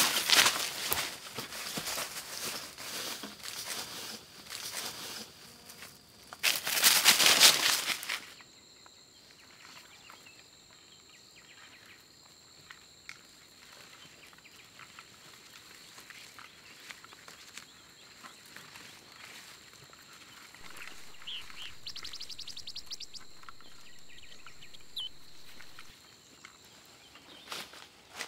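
Footsteps crunching through dry leaf litter and brush, loud and dense for about the first eight seconds. Then a much quieter stretch of a steady high whine, with a few bird chirps and a short rapid trill a little past the middle.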